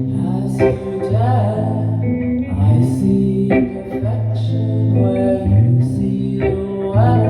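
A live band playing: long held bass notes that change pitch every second or two, under guitar.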